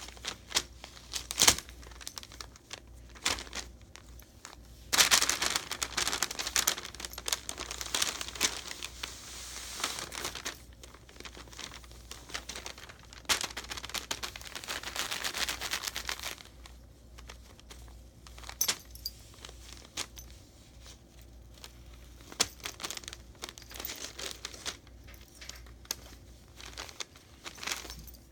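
Tissue paper rustling and crinkling as cats bat at and pounce on it, in irregular bursts with sharp crackles. There are two longer stretches of louder, continuous rustling, one about five seconds in and another around thirteen seconds in.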